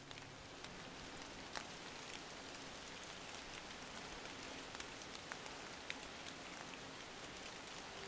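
Rain falling on trees: a soft, steady hiss with scattered individual drops ticking close by, fading up in the first second.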